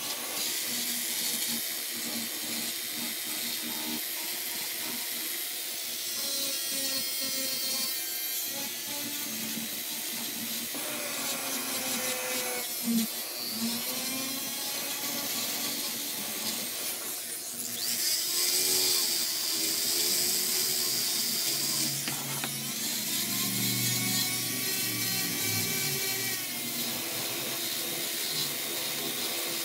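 Foredom flex-shaft rotary tool with a fine Saburrtooth carbide burr grinding and smoothing catalpa wood: a continuous gritty grinding with a motor whine that shifts up and down in pitch, louder for a few seconds about two-thirds through.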